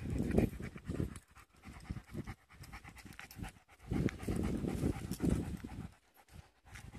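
German Shepherd panting hard with its tongue out, the breaths loudest about four to five seconds in as it passes close.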